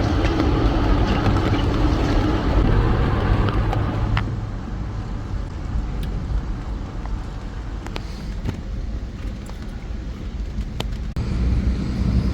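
Wind buffeting the microphone: a steady, heavy low rumble that eases after about four seconds and picks up again near the end.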